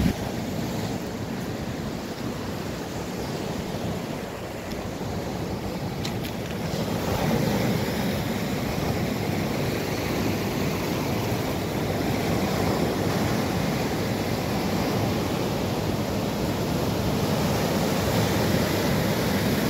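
Sea surf breaking and washing over a pebble shore: a continuous rushing that swells louder about a third of the way in.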